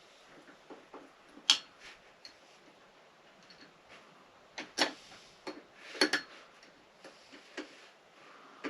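Scattered metallic clicks and clinks of hand tools and parts being handled while a motorcycle engine is taken apart on a workbench. A sharp click comes about a second and a half in, another pair near five seconds, and a small cluster around six seconds, with quiet between.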